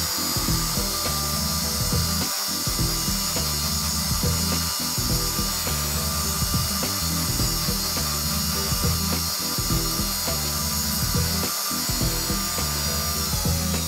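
Bench grinder running while the metal motor housing of an electric water pump is held and turned against its wheel, grinding the rust and dirt off its surface.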